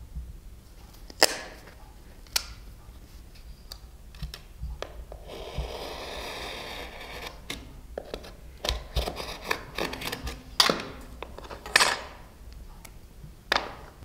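Hand leatherworking tools on a leather belt: two sharp snaps from a rotary leather hole punch, then a stretch of rough scraping and a run of clicks and knocks as a utility knife cuts the leather against a wooden bench.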